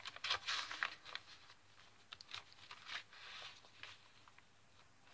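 Soft paper rustling and brushing as the pages and tags of a handmade junk journal are turned and handled, in a few short strokes.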